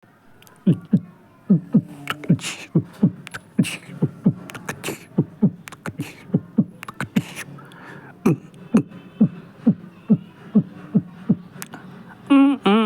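Beatbox-style percussion: short deep kicks that drop quickly in pitch, in an uneven rhythm, with sharp clicks and hisses between them. A voice with a wavering pitch comes in near the end.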